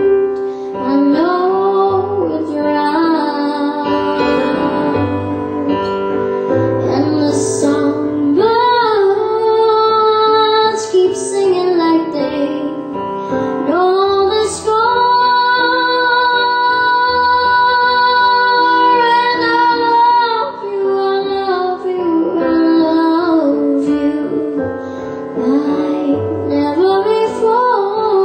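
A woman singing a ballad with instrumental accompaniment, holding one long note for several seconds in the middle.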